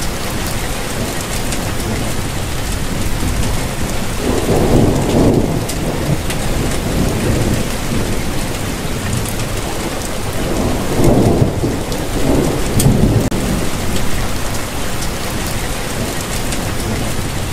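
Steady rain falling, with thunder rumbling twice, about four seconds in and again near the end.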